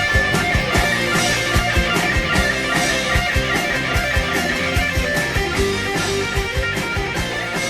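Rock music: electric guitar playing over a band with a steady drum beat.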